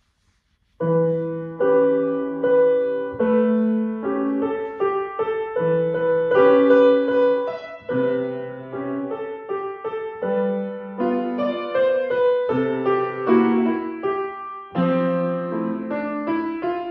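Grand piano played solo: a slow piece of chords and melody notes, each struck and left to ring, beginning about a second in.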